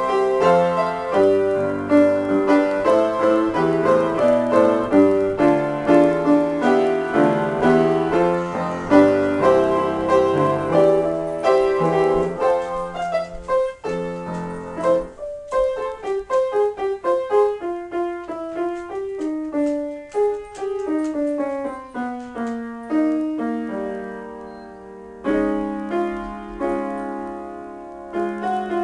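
Upright piano played solo in a free improvisation: dense, busy chords for about the first half, then a sparser, softer passage of fewer notes that gradually quietens.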